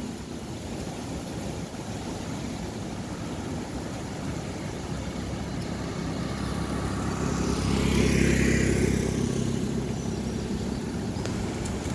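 Motor scooter riding past close by, its engine growing louder to a peak about eight seconds in and then fading as it goes by, over a steady rush of wind noise.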